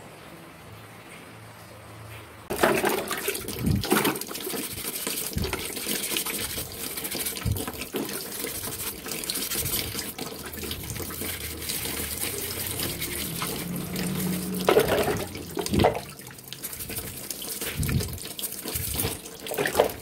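A bristle brush scrubbing a black plastic fan part in a bucket of water: sloshing, splashing and scrubbing, with a few knocks, starting suddenly about two and a half seconds in after a quiet hum.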